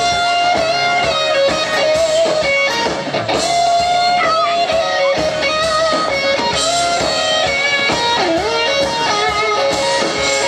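Live band music led by electric guitar: a melodic line over strummed guitar accompaniment, played loud and steady.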